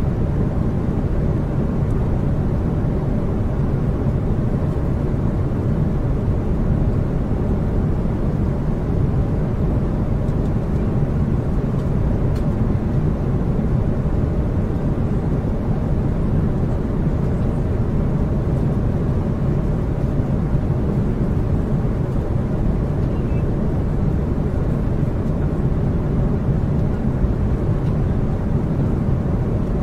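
Steady drone of a large aircraft's engines and rushing airflow heard inside the cockpit in level flight, an even low noise with no changes.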